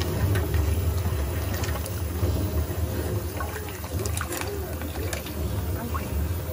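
Tap water running steadily into a basin of live blue crabs in a steel sink, with scattered light clicks and knocks from the shells and the metal tongs.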